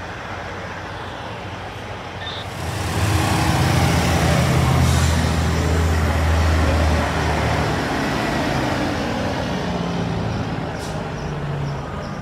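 Diesel semi-trucks hauling trailers roll slowly past in traffic. About three seconds in, a truck's engine grows loud as it passes close, then eases off a little as the next truck comes up.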